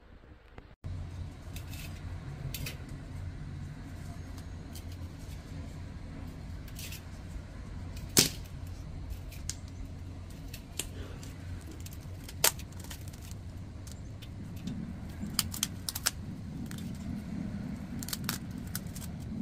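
Sharp cracks and crackles of a dried fruit's brittle shell being broken and picked apart by hand over a steel bowl. The loudest snaps come about 8 and 12 seconds in, with a flurry of small cracks near the end, over a steady low hum.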